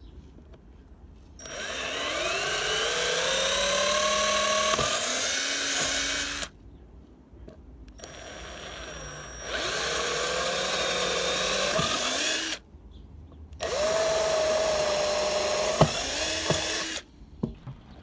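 Hand-held electric drill boring into the deck through the bolt holes of a metal flange: three runs of a few seconds each, each opening with a rising whine as the motor spins up, then a steady whine, with short pauses between.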